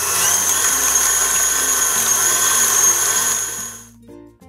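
KitchenAid Artisan stand mixer running, its wire whisk beating eggs and sugar toward the ribbon stage; a steady motor whine over whisking noise that fades out about four seconds in.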